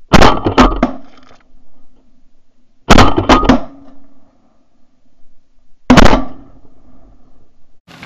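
Three volleys of shotgun fire at a flock of Canada geese, about three seconds apart, each volley several shots in quick succession.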